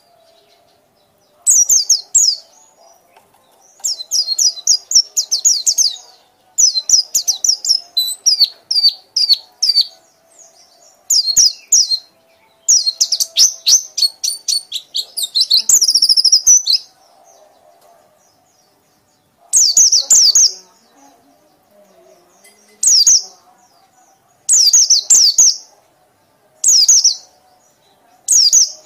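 White-eye (pleci) singing its fast, chattering 'ngekek' song: bursts of rapid high-pitched twittering trills, each half a second to two seconds long, repeated again and again with short pauses.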